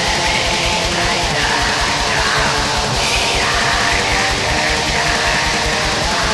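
Black metal song: heavily distorted electric guitars over fast, steady drumming and a constant wash of cymbals, loud and dense throughout.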